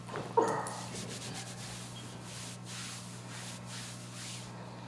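A sudden short pop about half a second in, the loudest sound: a chiropractic adjustment thrust delivered on the patient's exhale. It is followed by a run of soft, repeated rubbing and rustling as hands move over the patient on the table.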